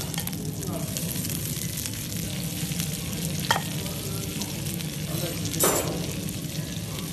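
Butter sizzling and crackling in a clay güveç pot as chunks of fatty meat fry in it. Two sharper knocks stand out, about three and a half and five and a half seconds in.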